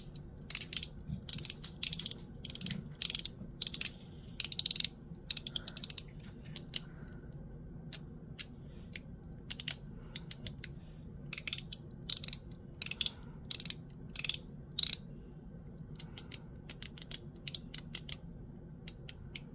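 One Pal mechanical fidget slider slid back and forth, snapping through its detents in irregular runs of sharp, bright clicks.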